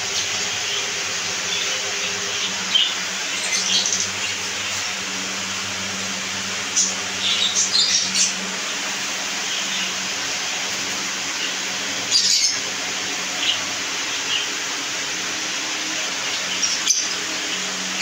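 Budgerigars chirping in short, scattered bursts over a steady background hiss, with a single sharp click near the end.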